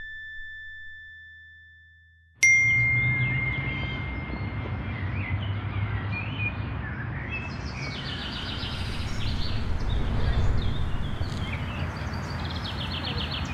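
A single bright electronic ding rings out suddenly about two seconds in and fades over a couple of seconds, like a phone app's confirmation chime. Park ambience follows: birds chirping and calling in quick runs over a steady low rumble.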